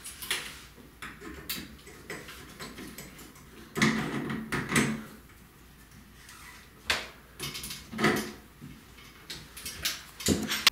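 Pliers working a metal shower-hose nut onto a chrome shower diverter: irregular metal clicks, clanks and scrapes, with a few sharper clanks partway through.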